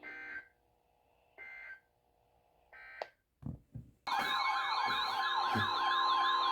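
Emergency Alert System broadcast audio: three short, harsh digital data bursts about a second apart, which are the end-of-message code closing a warning. After a few low thumps, a loud siren-like alert tone starts about four seconds in: a fast, repeating up-and-down wail over a steady high tone, announcing the next warning.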